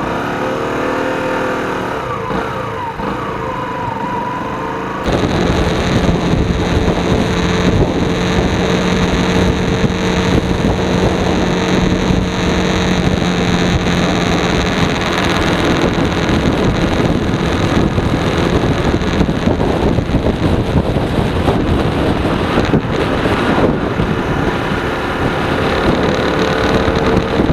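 Hyosung Karion motorcycle engine running on an off-road ride, its pitch rising and falling in the first few seconds. About five seconds in it turns suddenly louder and steadier, the engine buried under a dense rush of wind and ground noise.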